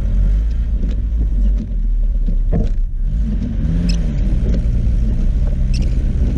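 Daihatsu Feroza's engine running under load as the 4x4 ploughs through deep snow, with a heavy low rumble and the engine pitch rising and falling. Scattered clicks and knocks sound over it, one louder knock about two and a half seconds in.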